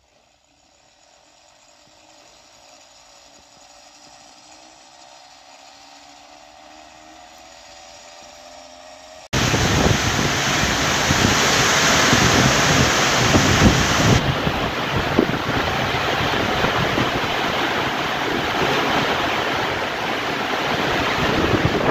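A faint sound slowly growing louder for about nine seconds, then a sudden cut to heavy rain pouring down in a loud, steady hiss.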